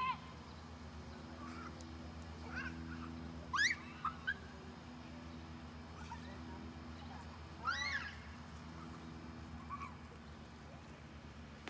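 Young children's short, high-pitched squeals while playing in a lawn sprinkler, several over a few seconds, the two loudest about four seconds apart, over a steady low hum.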